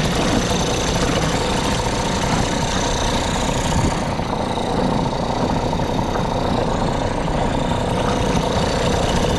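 Small Tohatsu 2.5 hp outboard motor running steadily in neutral, with its lower unit churning water in a test bucket. It is running on a power head that has just been swapped on and not run before.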